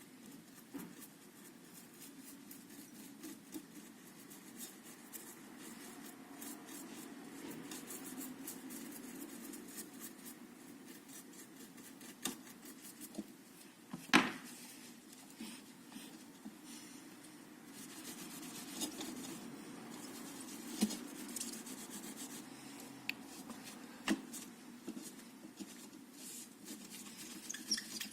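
Small handling sounds of hands working on a part at a bench: rubbing and scraping with scattered light clicks, and one sharp click about 14 seconds in.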